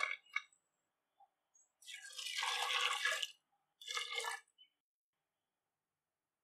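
Water poured into an aluminium pressure cooker onto soaked dal and diced chayote: one pour of about a second and a half, about two seconds in, then a shorter second pour. At the very start, a brief rattle of the soaked dal sliding in from its bowl.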